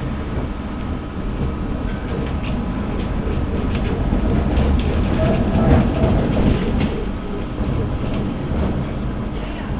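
Tram running along the street as heard from inside, a steady low rumble of wheels on rails with scattered clicks. It grows louder about halfway through, then eases off.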